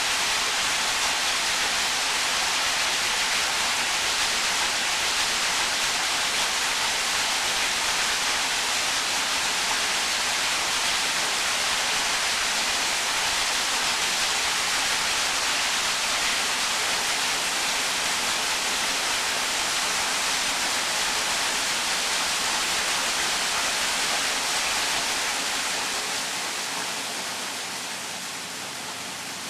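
Waterfall rushing in a steady, even hiss that grows quieter over the last few seconds.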